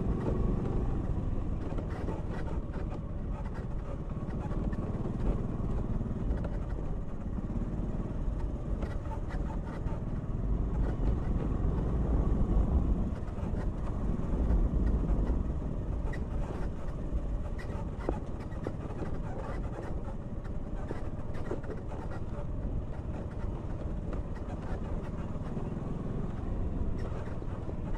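Motor scooter engine running steadily with a low rumble as it rides over a rough dirt track, with frequent knocks and rattles from bumps. It gets louder for a few seconds about halfway through.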